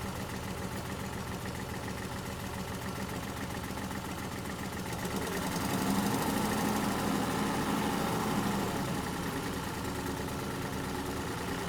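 Excavator diesel engine idling steadily, swelling louder for a few seconds midway and then settling back.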